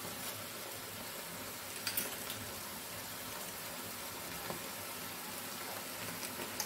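Pan of small prawns sizzling and simmering steadily in the last of their cooking water, as a crushed coconut paste is dropped over them. There are a couple of light taps, about two seconds in and again midway.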